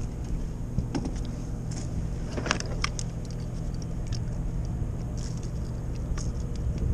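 Steady low wind rumble on the microphone, with scattered light clicks and rattles of pliers and tackle as a small bass is unhooked. The clicks are thickest about two and a half to three seconds in.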